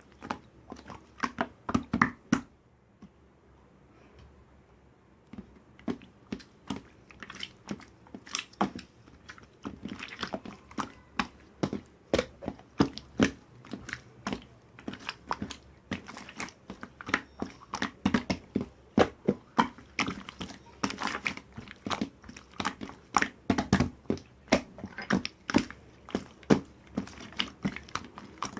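Crisp crunching and chewing, a quick run of sharp crunches several times a second. It breaks off for about three seconds near the start, then goes on steadily.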